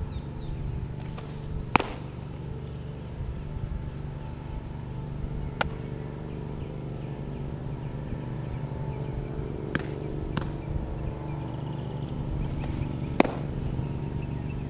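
A baseball hitting a catcher's leather mitt with a sharp pop about two seconds in, and another sharp pop near the end, with a few fainter clicks between. A steady low background rumble runs underneath.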